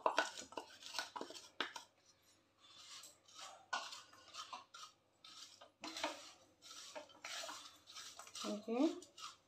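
A spoon scraping and knocking inside an aluminium kadhai while lumps of unmelted jaggery are stirred around, giving irregular scrapes and clicks.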